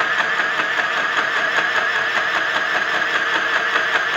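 Mini electric sewing machine running at steady speed, stitching through cloth: a continuous motor whine that wavers slightly in pitch, with a fast even pulsing from the needle strokes.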